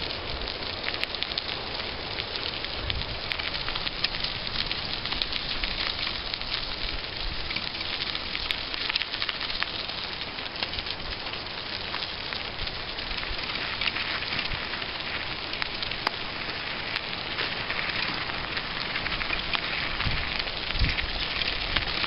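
Bicycle tyres rolling over a gravel trail: a steady crackling, crunching hiss full of small ticks. A few low rumbles of wind or jolts on the microphone come near the start and again near the end.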